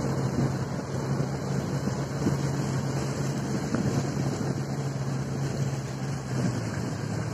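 Rigid inflatable boat under way, its engine running with a steady low drone and wind buffeting the microphone.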